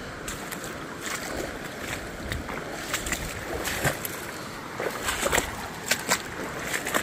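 Shallow rocky stream rushing steadily, with sharp splashes and sloshes of someone wading through it on foot, growing more frequent and louder in the second half.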